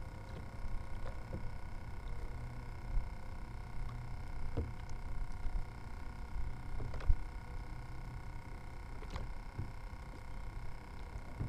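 Low steady rumble of wind and choppy water around a kayak, with a few faint scattered taps.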